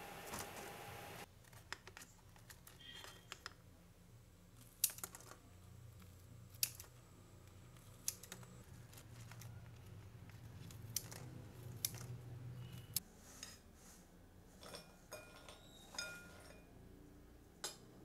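Light, irregular clicks and taps of cooking utensils, a wooden spoon and metal tongs, against a frying pan and a metal mesh strainer as fried pieces are lifted out, over a faint low hum.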